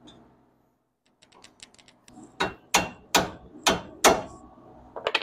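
Hand ratchet working the outer tie rod end's nut loose on the steering knuckle. First comes a quick run of light clicks, then five or six louder, sharp metallic clicks about every half second.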